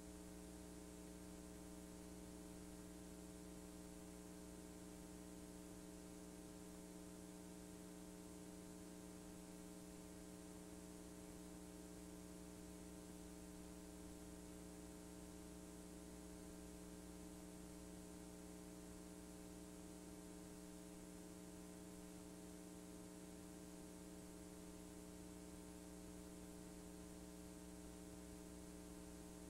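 Near silence: a faint steady electrical hum with hiss, unchanging throughout, as on a blank stretch of a digitized VHS tape.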